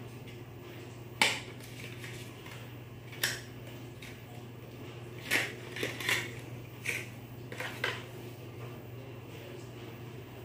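Sharp plastic-and-metal clicks and light clatter as a DDR4 laptop RAM module is handled and pressed into its slot. The loudest click comes about a second in, then a scattered run of smaller clicks through the middle.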